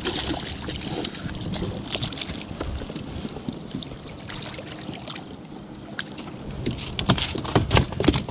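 Water sloshing and splashing against a fishing kayak as a hooked false albacore is brought alongside at the surface. A run of sharp clicks and knocks comes in the last couple of seconds as the fish is taken in.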